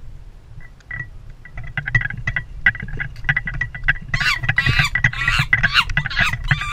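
Wind rumbling on the microphone of a selfie-stick camera as its holder walks, with scattered clicks of handling. From about four seconds in, high-pitched giggling and laughter from young people comes in.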